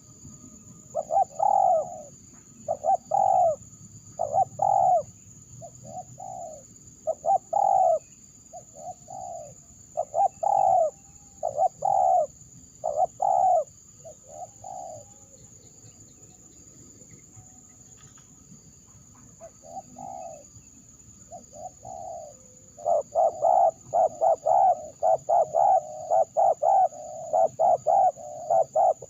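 Spotted dove (terkukur) cooing in phrases of short repeated coos. After a pause in the middle, a quick run of coos comes near the end.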